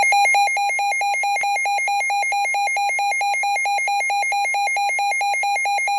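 Midland NOAA weather alert radio sounding its loud electronic warning alarm, a rapid, evenly pulsing beep tone set off by a received tornado warning alert.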